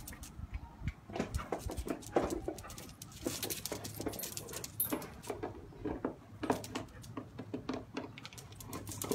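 Two dogs, a pit bull mix and a cocker spaniel, playing on concrete: irregular quick clicks and scuffles of paws and claws.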